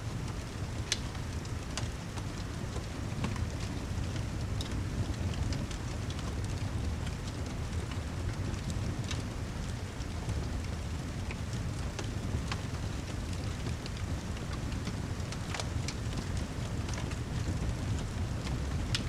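Steady rain with a low rumble underneath, and a fireplace crackling with scattered sharp pops.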